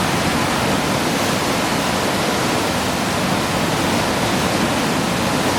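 Hurricane wind and heavy rain: a steady, unbroken rush of noise.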